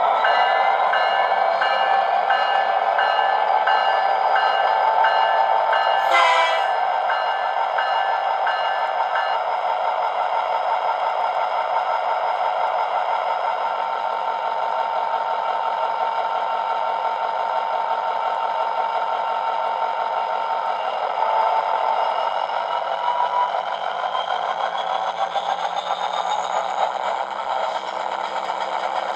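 Digital sound decoder playing EMD SD70ACU diesel locomotive sound through a small model-train speaker. The engine runs continuously, its pitch rising near the start and again over the last several seconds. A short pulse repeats until about nine seconds in, and a sharp burst comes about six seconds in.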